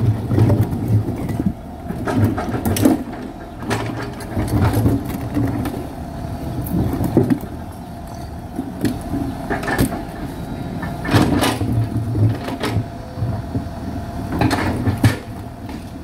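Backhoe's diesel engine running, louder in stretches as it works. Irregular sharp knocks and clanks come through it, the sound of the bucket working against rock.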